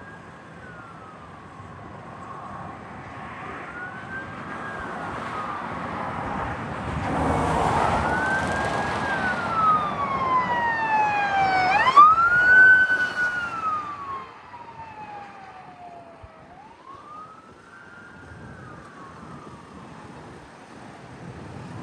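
Emergency vehicle siren in a slow wail, rising and falling about every four seconds, on LifeLine's Sprint 3 response unit. It grows louder with engine and tyre noise as the vehicle drives past about twelve seconds in, then fades as it moves away.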